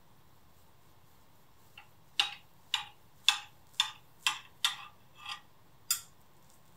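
Serrated table knife sawing through a fluffy soufflé-style pancake on a plate, about eight short crisp strokes at roughly two a second, starting about two seconds in.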